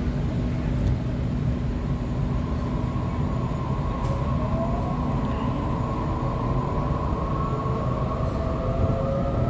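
Waratah electric train running, heard from on board: a steady low rumble, with a whine of several tones that starts about four seconds in and rises steadily in pitch as the train picks up speed.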